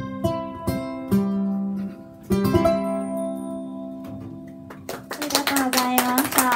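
Ukulele strumming the last bars of a song, ending on a chord that rings out and fades. Audience applause breaks out about five seconds in.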